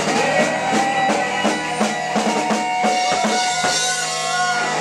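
Live rock band playing loud: drum kit hitting steadily, about three strikes a second, under held, sustained notes.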